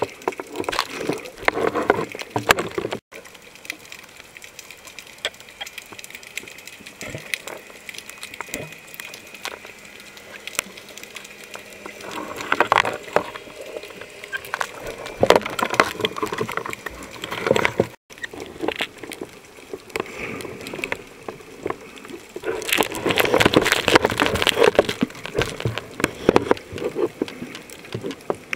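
Seawater heard through an underwater camera: a muffled wash of water full of small crackling clicks, swelling louder several times, most strongly in the last third. It drops out briefly twice.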